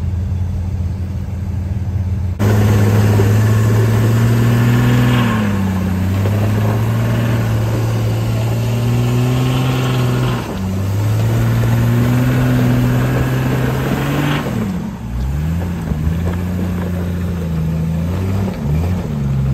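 Jeep Cherokee XJ engine working off-road: steady at first, then louder from about two seconds in, with a hiss over it. The revs rise and fall several times, quickest near the end.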